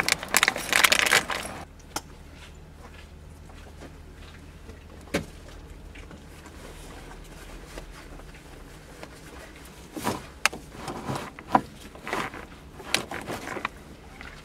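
Small items clinking and rattling as someone rummages in a bag, for about a second and a half, then the low steady rumble of a car's cabin while driving. A few single sharp clicks are heard, and scattered rustling and clatter near the end.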